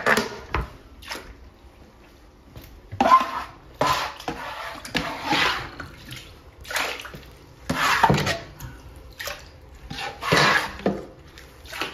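Water splashing and sloshing in short, irregular bursts every second or two, with quieter gaps between them.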